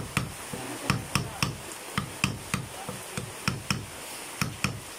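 Hammer tapping a punch against a Kia Picanto disc brake caliper piston: a quick, uneven series of light knocks, about three a second, working the new piston into its bore.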